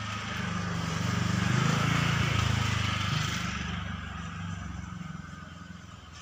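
A motor vehicle passing by with a low engine hum. It grows loudest about two seconds in, then fades away.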